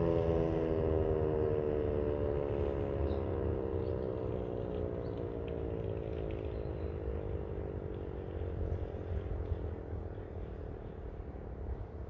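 Landert MSL-6 electromechanical civil-defence siren running down at the end of its 'Probe' test signal: the howl slides steadily down in pitch and fades away. A steady low rumble lies underneath.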